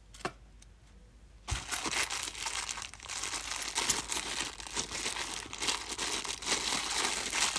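Clear plastic bag of £2 coins being crinkled and torn open by hand. After a single click and a quiet first second and a half, the crackling runs on continuously.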